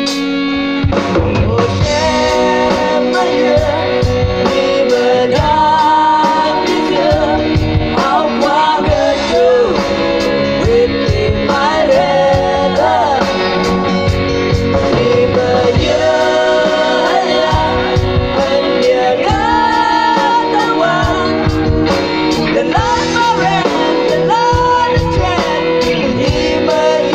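Live rock band playing through a PA system: a singer's voice over electric guitars, bass guitar and a drum kit with a steady beat. The vocals come in about a second in, after a guitar passage.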